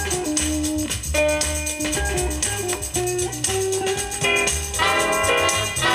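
Music playing from a vinyl record on a Sears-branded ELAC 40 turntable: a melody over a steady, pulsing bass beat.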